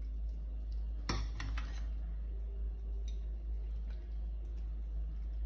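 Light clinks of a metal ladle against a pot and a plate as braised chicken is scooped out and served, with one sharper click about a second in and a few faint ticks, over a steady low hum.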